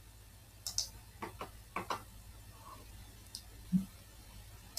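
A few sharp computer mouse clicks at irregular intervals, about six in all, with a soft low thump near the end.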